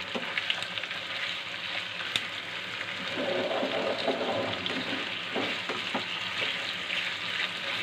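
Raw chicken pieces frying in oil with sautéed onions and carrots in a frying pan, sizzling steadily as they are stirred with a wooden spatula. A few sharp knocks of the spatula against the pan come through.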